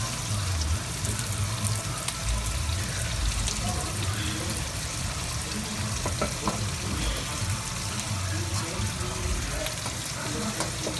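Scallops frying in melted butter in a pan: a steady sizzle with scattered small pops.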